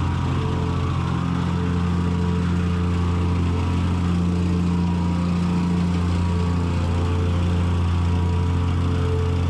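An engine running steadily at a constant speed, with its pitch holding even throughout.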